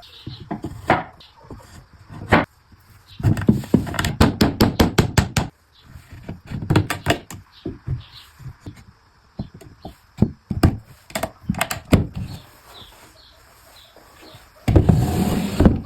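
Knocks and taps on wood, including a quick run of taps about three seconds in, followed by a louder noisy burst about a second long near the end.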